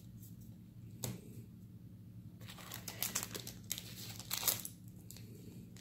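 Foil trading-card booster pack crinkling in the hands as it is opened, in irregular bursts starting about two and a half seconds in. A single click comes about a second in.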